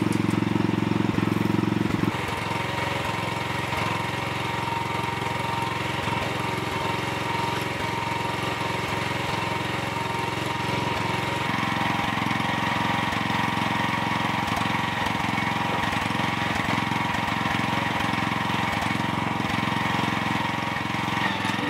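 Mitsubishi Minicab kei truck's small engine running steadily, its note changing about two seconds in and again about halfway through.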